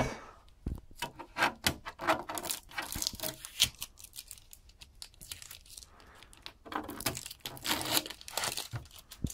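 Hands handling a vintage oscilloscope's metal case: scattered clicks, scrapes and rustles, with a pause of a couple of seconds in the middle.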